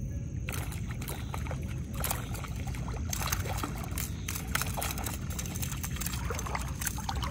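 A small hooked trout thrashing and splashing at the water's surface as it is reeled in and scooped into a landing net, irregular splashes over a steady low rumble.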